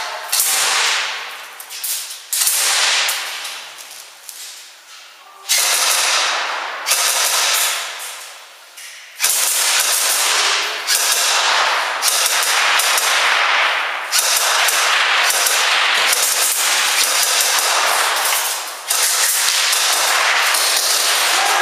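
Airsoft guns firing in several long bursts, each starting suddenly and trailing off, echoing through a large concrete hall.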